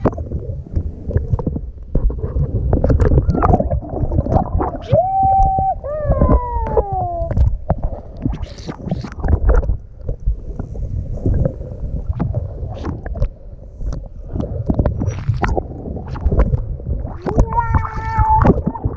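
Water sloshing and splashing around an action camera held at the surface, the housing dipping under and coming back up. A few short pitched calls cut through: one sliding down in pitch about six seconds in, and a held one with overtones near the end.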